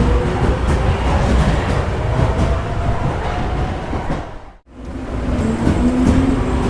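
Subway train pulling out of a station: a heavy rumble with a faint rising motor whine. About four and a half seconds in the sound fades almost to silence, then the same departure begins again, as a looped recording.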